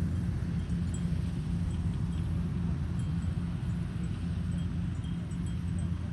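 A steady low mechanical drone, with faint light clinks scattered through it.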